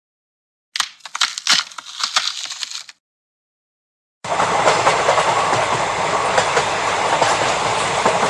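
A train running on rails: a steady noise full of rapid wheel clatter that starts about four seconds in. Before it come about two seconds of irregular sharp clicks and crackles.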